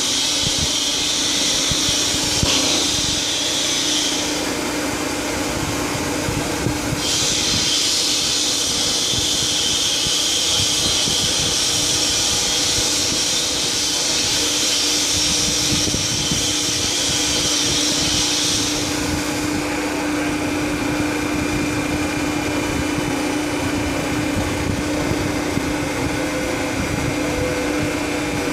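Dump trailer's hydraulic hoist raising the body on a telescopic cylinder: a steady pump hum with a high hiss that drops out about four seconds in, returns near seven seconds and stops around nineteen seconds.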